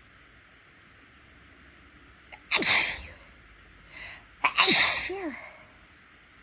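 A person sneezing hard twice, about two seconds apart, each sneeze ending in a voiced cry that falls in pitch. A brief softer sound comes just before the second. The sneezes were induced, set off by the scent of cleaning products.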